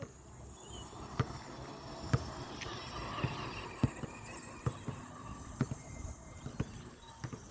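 Faint running of a Blackzon Smyter MT RC monster truck with its stock brushed electric motor, driving over grass, with scattered short clicks and knocks throughout.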